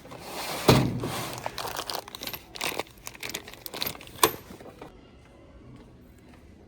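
Crinkling, rustling handling noise from hardware being sorted through, with a sharp click a little past four seconds in. It dies down after about five seconds.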